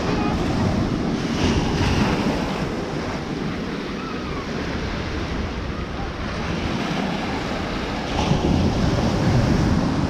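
Small surf waves breaking and washing up a sandy shore, a steady rushing that swells about two seconds in and again near the end as waves break close by. Wind buffets the microphone underneath.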